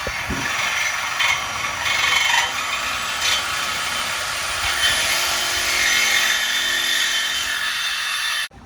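Power tool cutting steel exhaust pipe to make dump pipes: a steady, loud, rough grinding-sawing noise with a faint high whine that creeps upward, cutting off suddenly near the end.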